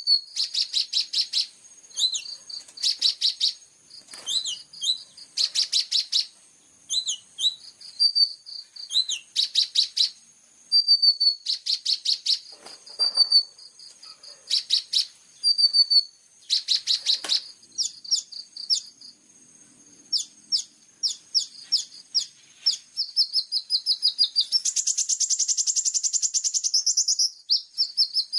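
Small songbird song played as a masteran training track: high, rapid chirping trills in short phrases with brief pauses, breaking into a longer continuous fast trill near the end.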